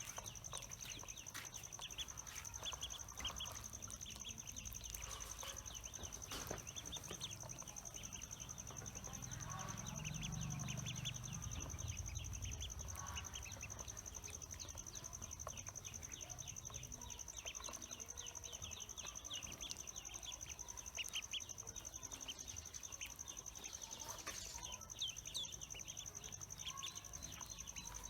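Pekin ducklings peeping: a steady stream of short, high peeps, several a second, over a constant thin high whine.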